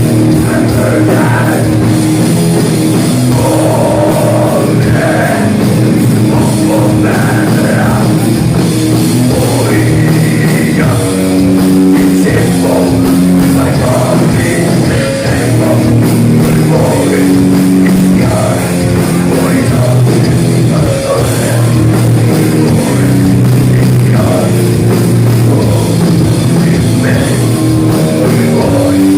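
Heavy metal band playing live: distorted electric guitars and drum kit, with singing.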